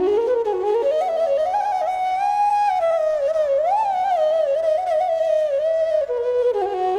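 Instrumental background music: a single melody line that glides smoothly between notes over steady held drone tones.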